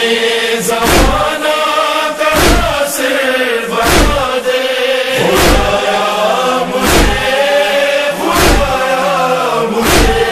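Male chorus chanting a sustained, wordless lament over a steady drone, with a heavy chest-beating (matam) thump about every one and a half seconds, seven times.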